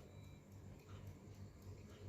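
Near silence: room tone with a low steady hum and faint, regular ticking a few times a second.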